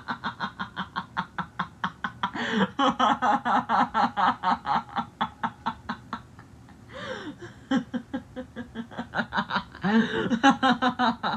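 A person laughing in rapid, evenly repeated bursts, with a short break about six seconds in before the laughter picks up again.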